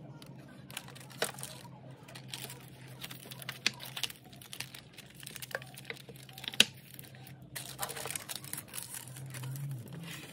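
Paper liners rustling and crinkling while metal cookie tins are handled, with scattered light clicks and taps, one sharper tap about six and a half seconds in. A low steady hum runs underneath.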